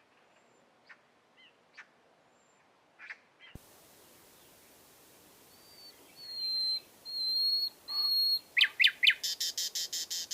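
Common nightingale singing: a few faint short notes, then three long whistled notes, a couple of quick falling notes and a fast trill of about ten notes a second that ends abruptly. About a third of the way in there is a click, and a faint steady hiss starts.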